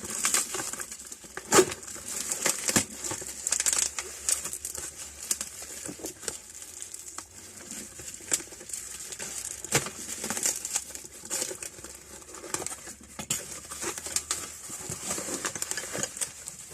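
Parcel packaging crinkling and rustling as it is unwrapped by hand, with irregular crackles and a few sharper knocks throughout.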